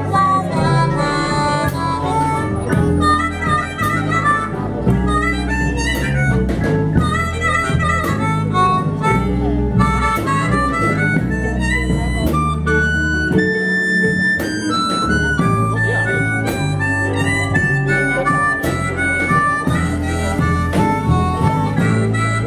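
Blues music: a harmonica playing over guitar and low bass notes.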